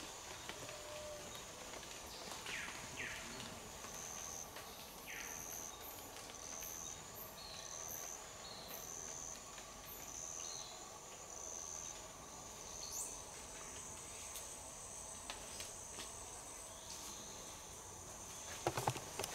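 Tropical rainforest insects drone steadily at a high pitch. From about four seconds in, a short high note repeats about one and a half times a second for several seconds, with a few brief calls around it. A cluster of crunching steps in leaf litter comes near the end.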